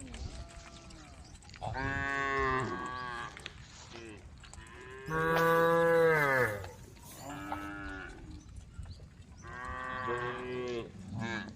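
A herd of cows mooing: a string of long, pitched moos from several animals at different pitches, about one every two seconds and sometimes overlapping. The loudest and longest comes about five seconds in.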